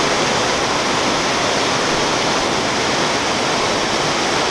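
River water pouring over a small concrete weir and churning in the channel below: a steady rush of falling water.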